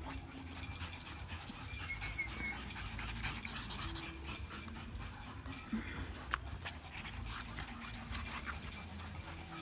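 A dog panting, with scattered light clicks over a steady low rumble.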